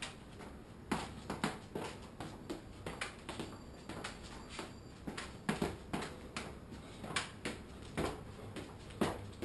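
Freestyle footbag run: quick, irregular taps and thuds of the footbag against the player's shoes, mixed with his footsteps and shoe scuffs on a hard floor, about three a second, beginning about a second in.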